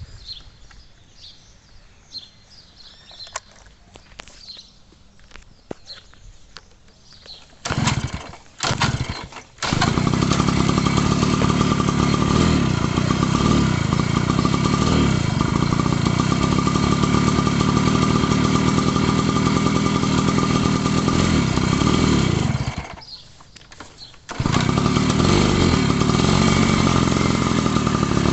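Daelim motorcycle engine being started: it fires briefly twice, then catches about ten seconds in and runs steadily. Near the end it dies for about a second and a half, then starts again and runs on.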